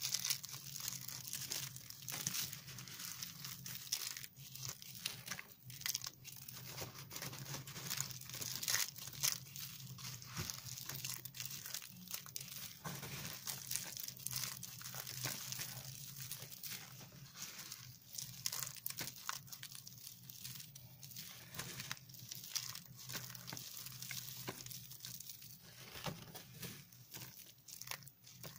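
Brittle flakes of dry shaved soap crunching and crackling as a hand squeezes and stirs a heap of them: a dense, continuous run of small crisp cracks, over a faint steady low hum.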